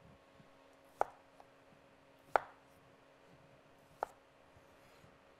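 Chef's knife slicing potatoes into rounds on a wooden cutting board: three sharp knocks as the blade comes down through the potato onto the board, about a second and a half apart.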